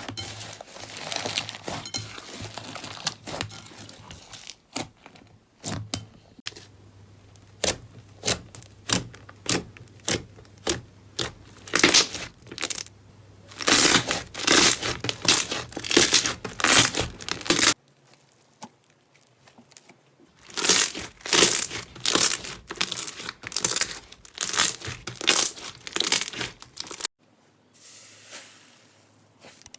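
Slime being squeezed, stretched and poked by hand, giving runs of sharp sticky pops and crackles, loudest in bursts partway through, with abrupt changes about 18 and 27 seconds in where one clip ends and another begins.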